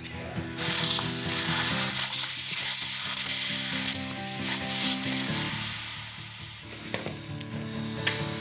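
Compressed air hissing steadily for about six seconds, starting just after the beginning and cutting off sharply, over background music.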